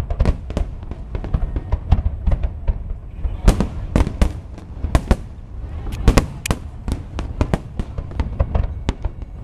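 Aerial fireworks shells bursting in quick, irregular succession: many sharp bangs, several a second, over a continuous low rumble.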